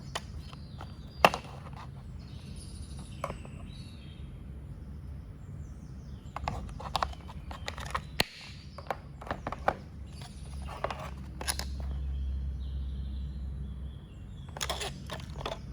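Scattered sharp clicks and light knocks from the screwdriver's accessories and box being handled, some single and some in short clusters, over a low steady hum.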